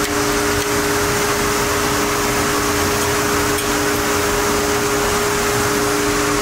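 Steady machine hum with two constant droning tones over an even hiss, with a couple of faint metallic clicks.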